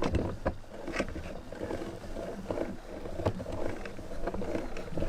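Meat grinder running and grinding soap, a steady churning with irregular sharp cracks and clicks as the soap is crushed.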